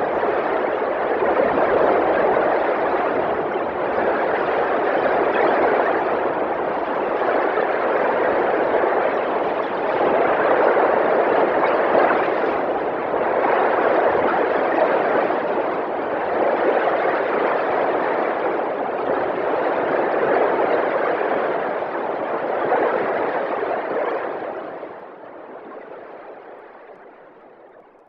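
Electronic sound made from NMR spectroscopy waveforms, standing for molecules tossed around in a liquid solution: a dense hiss that swells and ebbs about every two seconds. Over the last few seconds it fades away as the solvent's sound is filtered out.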